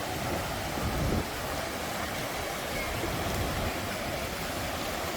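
Steady wash of ocean surf on a sandy beach, with a brief low rumble about a second in.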